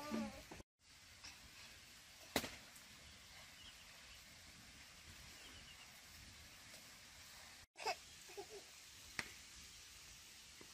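Faint outdoor background with a voice trailing off at the start, a couple of sharp clicks, and a few short chirps about eight seconds in.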